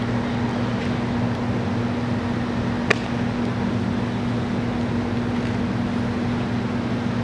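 Steady low mechanical hum of urban background noise, with a single sharp click about three seconds in.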